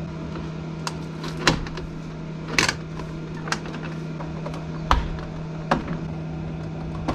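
About eight sharp clicks and knocks at irregular moments, as of hand tools working on the inverter's cable terminals, over a steady low hum.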